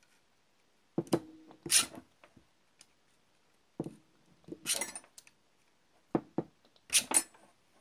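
Pliers working the metal lock on the end of a hand vacuum pump's trigger shaft: three short bursts of sharp metal clicks and snaps, some with a brief ring, as the jaws grip and slip.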